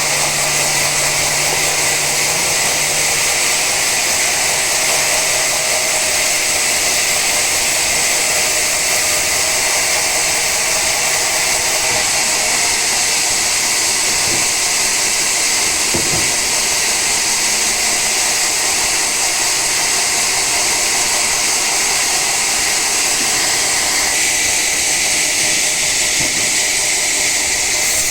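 Sawmill saw cutting through an old teak log, giving a loud, steady hiss with no break.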